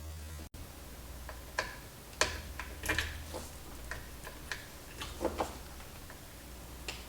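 Scattered light clicks and taps of small hand tools being handled on a repair bench during work on an amplifier's output transistors, irregularly spaced, over a steady low hum.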